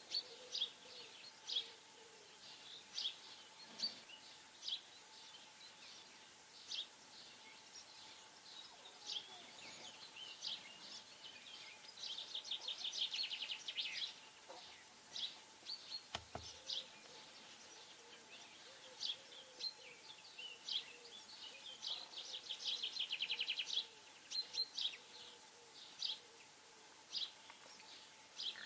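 Small songbirds calling: short high chirps every second or so, with two longer rapid trills, one about halfway and one near the end. A faint steady hum runs underneath, and there is a single low thud a little past the middle.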